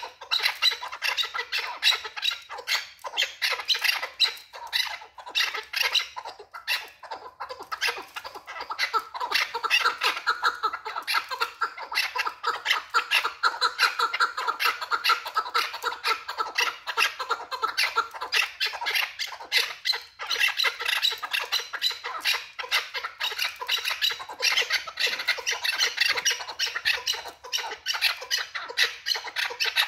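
Chukar partridge calling: a fast, unbroken run of sharp chuck notes, many a second.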